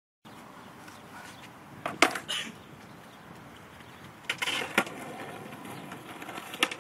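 Skateboards on concrete: sharp clacks of boards snapping and landing, loudest about two seconds in, again a couple of times around four and a half seconds, and once near the end, over a steady low background noise.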